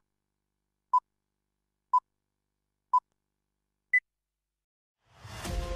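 Film-leader countdown beeps: short single-tone beeps once a second, the last one higher in pitch. About a second later a rising swell builds into a crash as intro music begins near the end.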